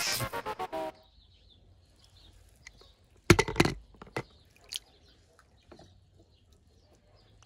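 A short musical jingle ends about a second in. About three seconds in comes a brief loud clatter of sharp knocks from toy cars being handled, followed by a few faint clicks.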